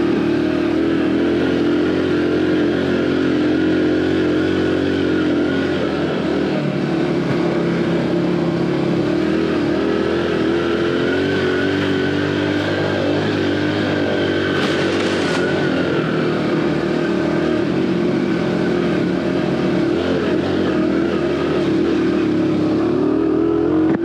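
Aveta Ranger Cub Cross 115cc underbone motorcycle engine running at fairly steady revs while being ridden on a rough trail. A brief hiss comes about fifteen seconds in.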